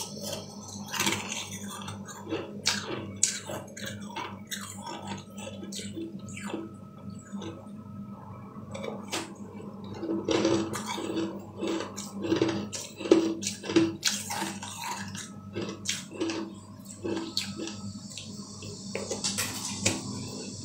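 Close-up eating sounds: wet clicks and crunches as a green ice dessert is bitten and chewed, with an even run of chews at about two a second through the middle.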